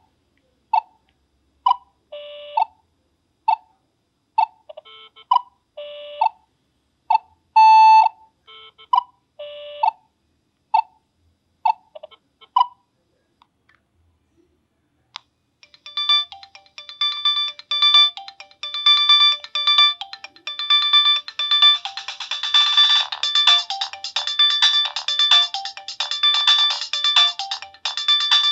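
Nokia 7650 stock ringtones: first a simple tune of short, separate electronic beep notes, about two a second. After a short pause about halfway through, a busier ringtone starts, with many quick notes layered together.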